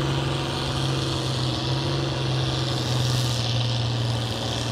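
Farm tractor's diesel engine running at a steady, unchanging pitch under heavy load as it drags a weight-transfer pulling sled.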